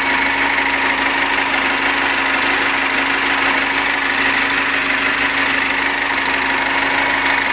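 The Gazelle Next's 2.8-litre four-cylinder 16-valve diesel engine idling steadily.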